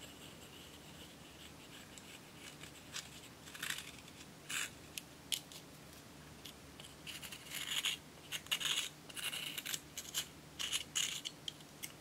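Small metal spatula scraping and scratching baked eyeshadow powder out of a plastic compact's pan, in short sharp strokes. The strokes start about three seconds in and come quickly and densely in the second half.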